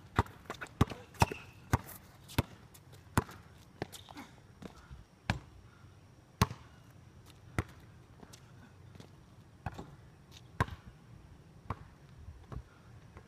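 Basketball dribbled on a concrete court, each bounce a sharp slap. The bounces come about four a second for the first couple of seconds, then slow to about one a second.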